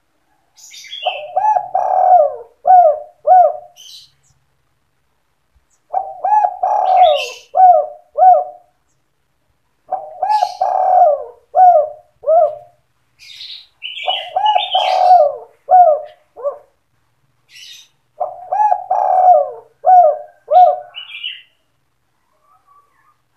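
Spotted dove (tekukur) cooing in the 'sandung kuk 2' style: five song phrases about four seconds apart, each a run of low coos ending in short clipped 'kuk' notes, with higher chirps over the coos.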